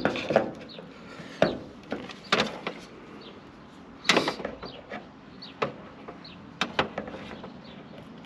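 Irregular sharp scrapes and clicks of a hand tool worked under the rubber seal of the rear window frame, scraping at rust, with about eight strokes.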